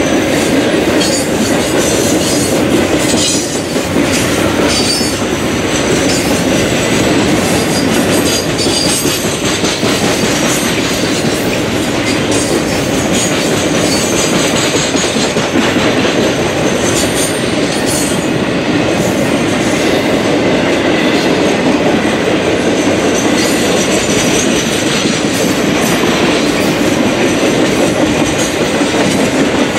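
Triple Crown RoadRailer trailers rolling past on their rail bogies: a loud, steady rumble and clatter of steel wheels on rail, with short high-pitched wheel squeals now and then.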